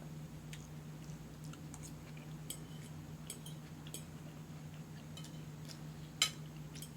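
A person chewing a mouthful of omelette, with scattered light clicks and one sharper click about six seconds in.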